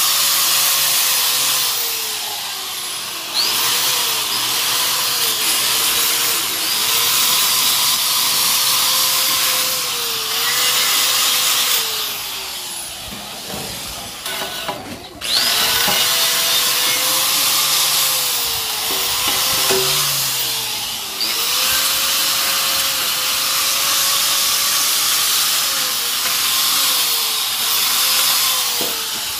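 High-speed handheld power tool working the metal of a pipe being restored. Its whine sags each time it is pressed into the work and recovers, and it is let off briefly a few times, longest about 13 to 15 seconds in.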